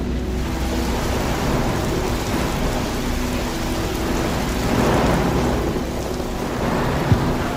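Heavy rain with rolling thunder that swells about five seconds in.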